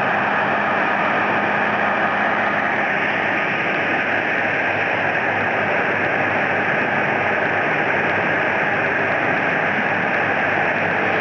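Two-saw pass-through log-squaring sawmill with large circular saws, running with a steady, unbroken mechanical noise.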